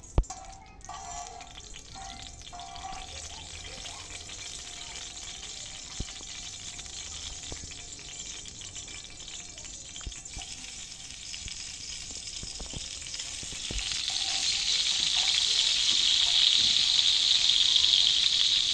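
Cooking oil sizzling on a hot round iron griddle over a wood fire, with a steady hiss. About three-quarters of the way in the sizzling grows much louder as tomato slices are laid into the oil and start to fry.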